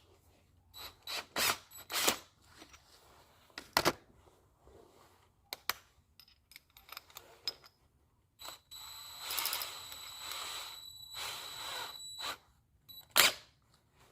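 Clicks and knocks of a drill and bit being handled, then an electric drill running for about four seconds with a steady high whine as it bores a hole in glass, followed by a single knock.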